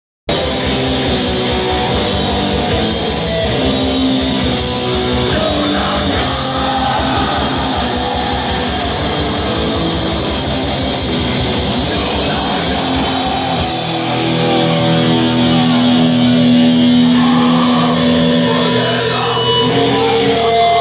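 Extreme metal music with distorted guitars over a fast, driving drum beat; about two-thirds of the way in the fast drumming drops away, leaving long held guitar chords.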